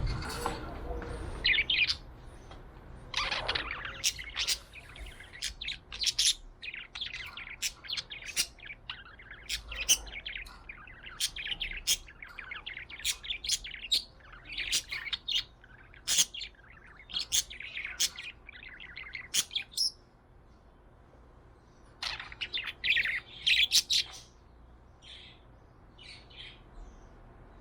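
Budgerigar chirping and chattering in quick runs of short high chirps and clicks. It pauses about two-thirds through, gives another short burst, then only a few faint chirps near the end. A brief thump at the very start.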